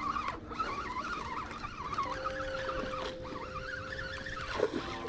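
Fishing reel being cranked against a hooked striped bass, giving a wavering mechanical whine over a steady low hum.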